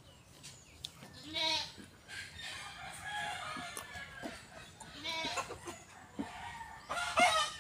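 Chickens calling, with a rooster crowing several times; the loudest crow comes about a second and a half in.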